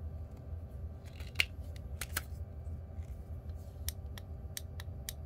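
Irregular small plastic clicks and ticks from a battery-powered soldering iron being handled: its handle twisted shut over the battery and its heat button pressed, with one sharper click about a second and a half in.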